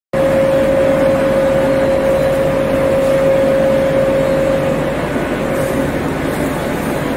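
Industrial machinery of a refrigerator crushing and separating line running steadily: a loud, even mechanical noise with a constant mid-pitched whine over it.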